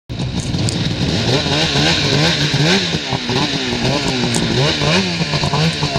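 A Polaris RMK Assault snowmobile's 800 two-stroke engine running hard, its revs swinging up and down over and over, several times a second in places.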